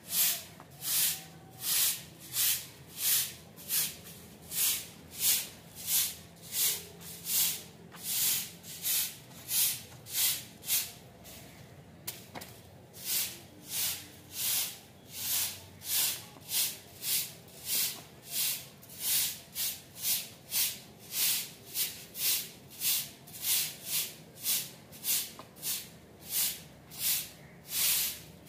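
Short grass broom swept in quick strokes across a bare concrete floor, a dry swish about twice a second with a brief pause about halfway through.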